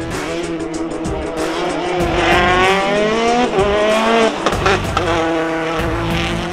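Rally car engine revving hard under acceleration, its pitch climbing for about two seconds and then dropping sharply at a gear change before pulling again.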